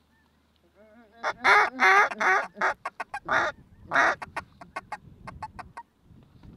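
Duck quacking: a few long, loud, wavering quacks about a second in, then a quick run of short quacks.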